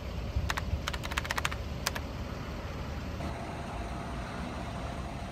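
Sharp clicks: two about half a second in, a quick run of about eight a second later, and one more near two seconds in, over a steady low rumble.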